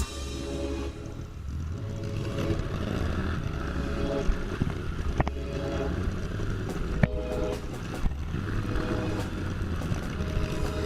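Trail motorcycle engine running steadily, with a few sharp knocks or clicks.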